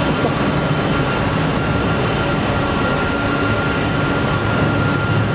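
Airbus A321 jet engines at takeoff thrust during the takeoff roll: a steady rumble with a thin, steady whine above it.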